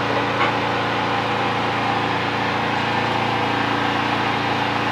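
An engine running steadily at idle, an even drone with no change in speed.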